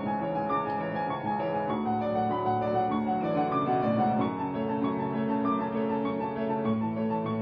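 Piano music with held, overlapping notes.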